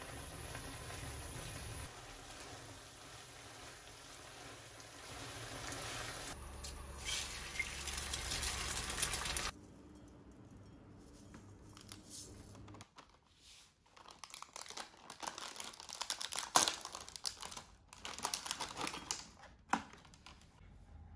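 Kimchi-tuna mixture simmering in a frying pan and stirred with a wooden spatula, a steady bubbling that grows louder before stopping abruptly about halfway through. After that come sparse rattles of sesame seeds shaken from a plastic jar and the crinkling of a plastic tray of seasoned laver.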